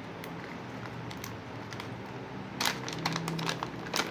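Plastic thermal-paste packaging crinkling and rustling as it is handled and opened. Faint scattered crackles are followed by a louder burst of rustling about two and a half seconds in, and another just before the end.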